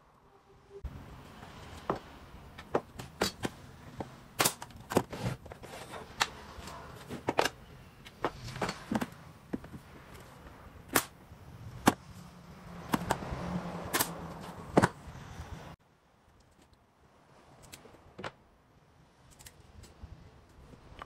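Pneumatic nail gun firing into the panels of a wooden drawer box: a string of sharp, irregular shots over a steady background hum. The shots stop suddenly about three-quarters of the way through, leaving quieter shop sound with a few light knocks.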